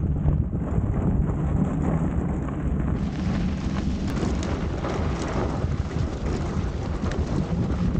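Fat tyres of an electric scooter and its towed trailer rolling over packed snow, a steady rumbling noise with wind on the microphone. About three seconds in the hiss grows brighter.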